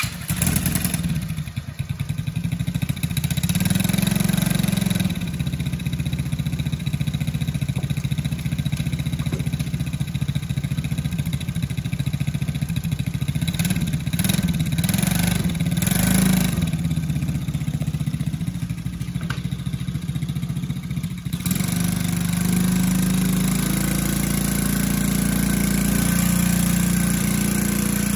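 A 125cc quad bike's single-cylinder four-stroke engine running, mostly at idle, with a few rises in pitch as the throttle is opened. It settles to a steadier run about three-quarters of the way through.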